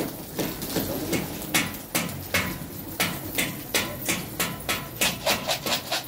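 Domestic pigeons flapping their wings as they take off and land: a quick, irregular series of sharp wing claps and flutters, two or three a second, with low cooing underneath.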